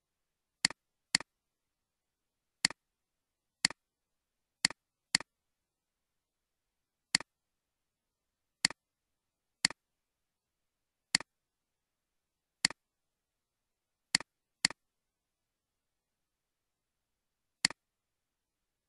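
Computer mouse clicks, about fourteen sharp single clicks spaced irregularly, a few coming in quick pairs, with dead silence between them.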